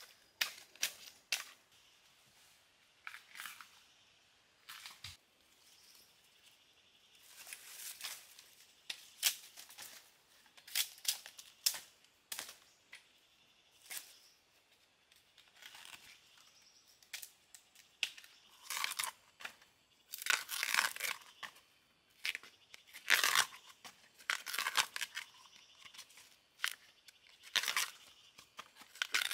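Husk sheaths being torn off harvested bamboo shoots by hand: irregular bursts of crisp tearing and crackling, busier in the second half.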